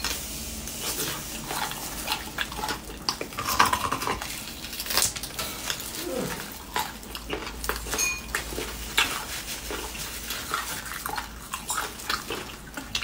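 Close-up eating sounds of beef bone marrow: wet sucking at the bone and chewing, with many short lip smacks and clicks.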